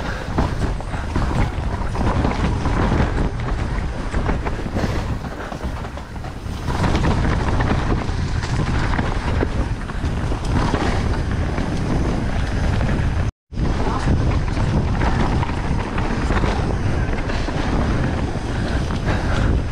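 Mountain bike ridden down a wet, muddy downhill trail: wind buffeting the camera microphone over the rumble and rattle of tyres and bike on the rough ground. The sound cuts out for an instant about two-thirds through.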